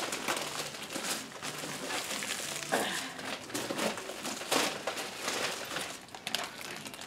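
Bubble wrap and plastic packaging crinkling and rustling in irregular crackles as it is handled and pulled off a box.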